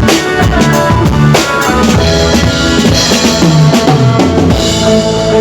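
Drum kit played with bass drum and snare hits over music that carries bass and other pitched instruments.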